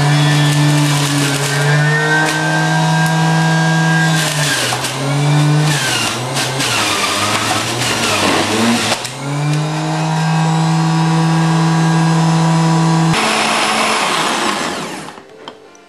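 Electric centrifugal juicer motor running with a steady whine. Its pitch sags and wavers for several seconds in the middle as produce is pushed down the feed chute and loads it, then it runs steady again. It is switched off near the end and whirs down.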